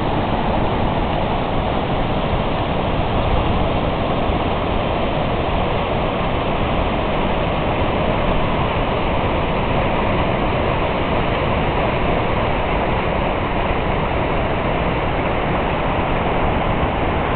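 Loud, steady rushing of a fast, silt-laden mountain river pouring over rapids and boulders.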